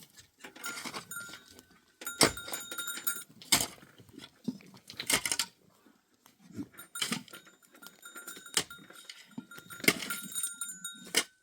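Goats bleating, mixed with several sharp knocks and clatter.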